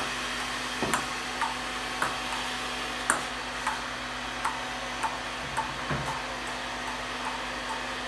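Ping pong ball bounced repeatedly on a paddle, a sharp light tick about twice a second, over a steady whirring noise.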